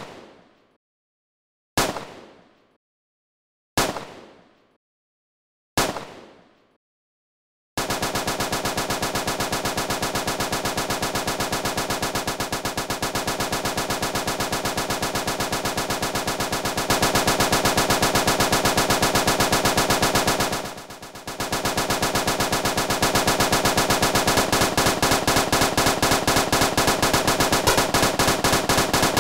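Synthesized bullet-hit sound effect from a software sampler preset. Three single hits come about two seconds apart, each fading out. From about eight seconds in, the arpeggiator retriggers the sample into a rapid, continuous, machine-gun-like stream that gets louder partway through and briefly drops out about three-quarters of the way through.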